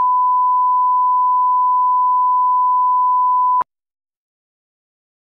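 Bars-and-tone line-up signal: a steady 1 kHz sine test tone that cuts off abruptly with a click about three and a half seconds in.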